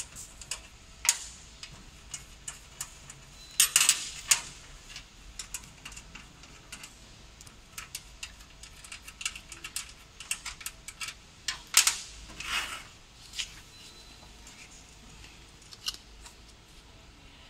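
Irregular small metallic clicks and clinks of screws, bolts and metal parts being handled and set down on the metal base plate of a desktop fiber laser marking machine during assembly, with a few louder knocks about four seconds in and again near twelve seconds.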